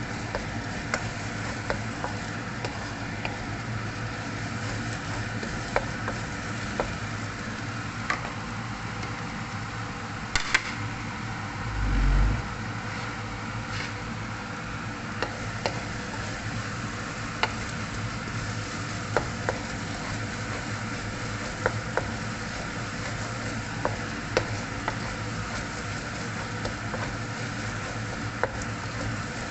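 Chicken pieces frying in hot oil in a pan, a steady sizzle with scattered pops and clicks as they brown. A single low thump about twelve seconds in.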